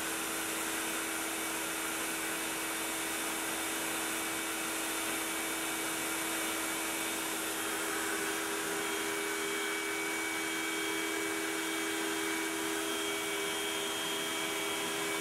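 Makita router on a Onefinity CNC running at speed as it V-carves MDF, with the dust collection drawing air through its hose: a steady whine over an even rush of air.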